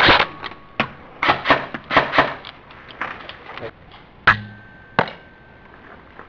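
Airsoft rifle fire: a rapid burst at the start, then a string of single shots and short bursts. Two sharp shots stand out about four and five seconds in, and then the firing stops.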